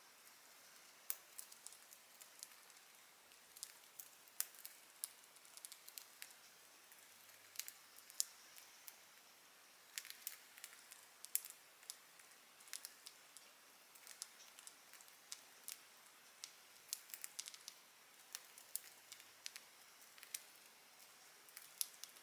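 Budgies' beaks nibbling and snipping at dried seagrass: irregular sharp crunches and clicks, sometimes several in quick succession, with short gaps between.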